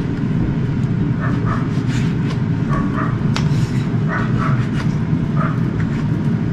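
Air fryer running steadily while it preheats: an even fan noise. Short high squeaks come and go about once a second over it.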